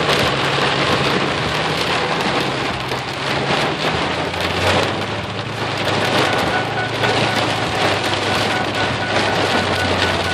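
Heavy rain drumming on a vehicle's roof and windshield, heard from inside the cab: a dense, steady roar made of countless drop impacts, with a low steady hum underneath.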